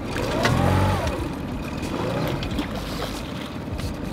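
Boat motor running steadily underneath, with a drawn-out wordless voice cry about half a second in and a shorter one around two seconds in.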